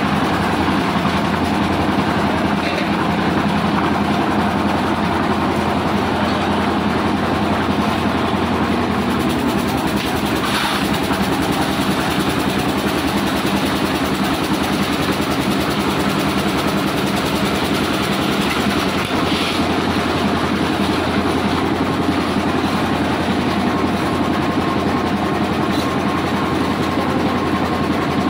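Drum-type concrete mixer running, its engine and turning drum making a steady, unbroken mechanical noise with a low hum.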